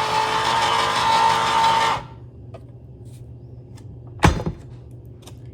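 A small electric motor runs with a steady hum and cuts off suddenly about two seconds in. A few faint clicks follow, then one sharp knock.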